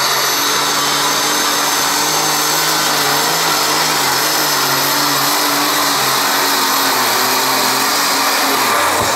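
A John Deere Super Stock pulling tractor's turbocharged methanol-burning engine running flat out under load as it drags the weight sled, a loud, steady engine drone with a high whine over it.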